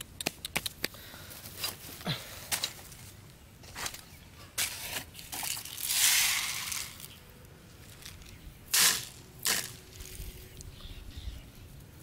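Hands handling a small plastic bottle of grain, the plastic crinkling and rustling, loudest about halfway through and in two sharp bursts about three-quarters in. Light taps and scrapes of hands working the sand come in the first seconds.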